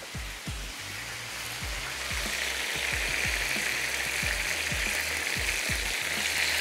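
Soy-marinated beef bulgogi strips sizzling as they fry in hot oil over high heat, the marinade sauces cooking off. The sizzle grows louder about two seconds in, over a soft background music beat.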